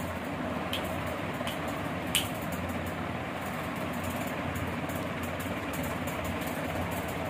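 Steady background hiss with a low hum, and three soft clicks in the first two and a half seconds, the last the loudest.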